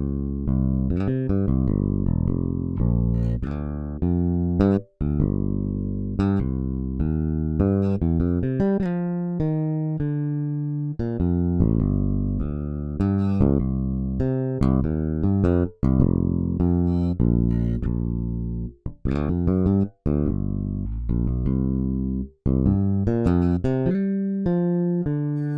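Toontrack EZbass virtual electric bass playing solo gospel bass lines from MIDI patterns, one plucked note after another, with a few short breaks where one pattern ends and the next begins.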